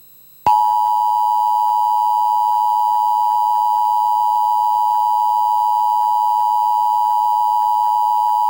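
Emergency broadcast alert tone: a single loud, steady electronic beep held for about eight seconds, starting about half a second in and cutting off abruptly.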